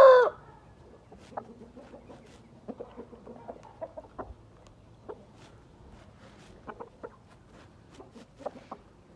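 Gamefowl rooster's crow ending abruptly just after the start, followed by scattered soft clucks and short calls from the chickens.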